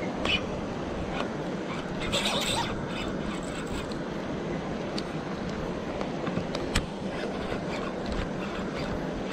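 Steady rushing of flowing river water, with a brief scrape about two seconds in and a few sharp clicks from handling the rod and reel.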